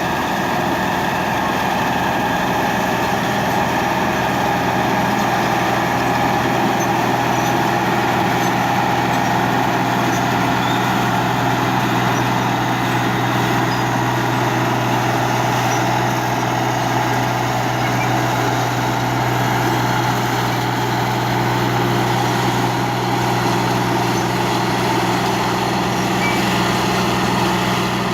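New Holland 8080 combine harvester running steadily while harvesting rice: the diesel engine and threshing machinery make a constant, unchanging drone.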